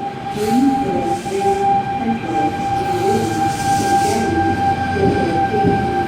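Electric passenger train running at an underground station platform, with a steady high whine over the rumble of the train and a few short hissing swells.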